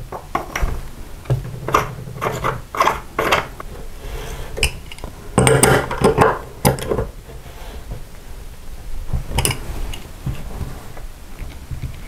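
Irregular metallic clicks, clinks and scrapes as a locking nut is threaded down over a bathroom faucet cartridge and tightened with an adjustable wrench.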